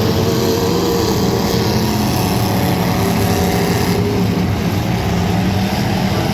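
Car engine running steadily at an even speed, a continuous drone with no revving.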